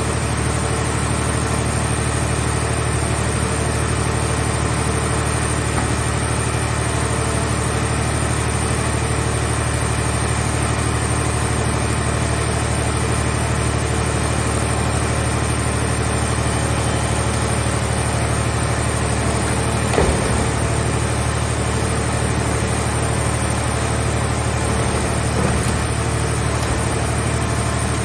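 Hydraulic car-body baler's power unit running steadily with a low hum and a faint high whine. A sharp knock comes about twenty seconds in, and a lighter one a few seconds later.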